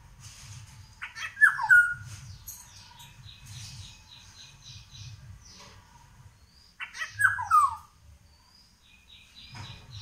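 Indian golden oriole calling: two loud, short downward-sliding calls about six seconds apart, with fainter quick high chirping of other birds between them.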